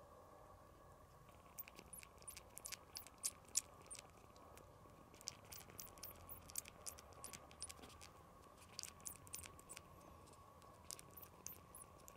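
Newborn kitten suckling on a finger: faint, irregular wet clicks and smacks from its mouth, coming in runs with short pauses.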